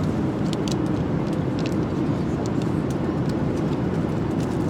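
Steady drone of an airliner cabin in flight: engine and air noise at an even level, with a few faint small clicks of handling.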